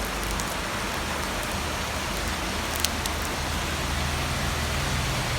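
Steady rain falling, with an even hiss and an occasional sharp drop tick. A low steady hum runs underneath and grows slightly stronger near the end.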